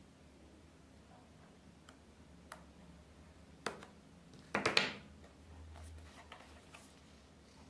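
Quiet handling of a cardboard product box and a small knife: a few light clicks, then a louder brief clatter about halfway through, followed by soft rustling of cardboard.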